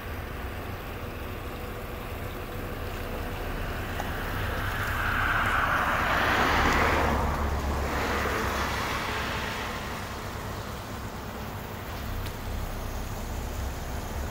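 Water pouring from a fountain spout over rocks and splashing into a pond, a steady rushing splash that swells louder for a few seconds in the middle.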